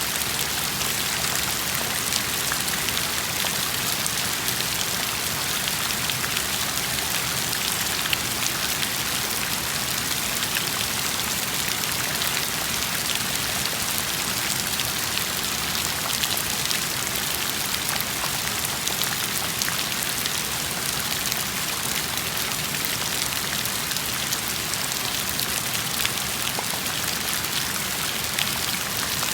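Steady rain falling: an even, unbroken hiss of many drops with fine patter throughout.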